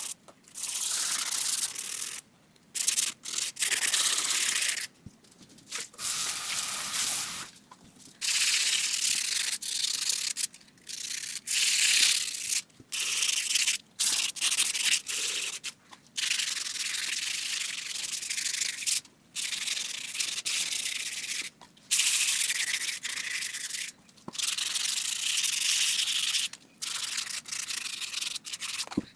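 220-grit sandpaper rubbed by hand over a helmet's surface: a scratchy hiss in stretches of a second or few, broken by frequent short pauses.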